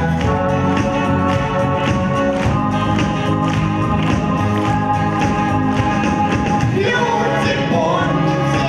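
Song played over a sound system, a steady beat under sustained instrumental chords; a singing voice comes in near the end.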